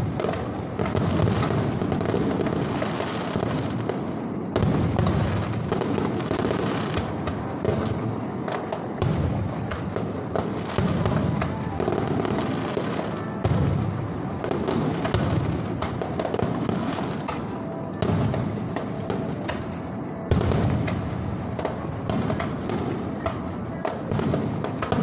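Fireworks display: aerial shells bursting in a continuous barrage, with a heavy boom every few seconds and dense crackling in between. The sharpest boom comes about two-thirds of the way through.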